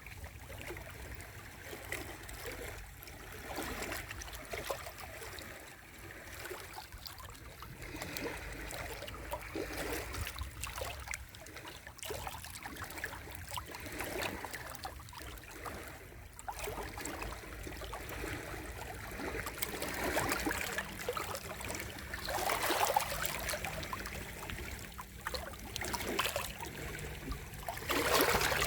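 Sea waves washing onto the shore: a continuous rushing of water that swells and ebbs, with louder surges about two-thirds of the way through and again near the end.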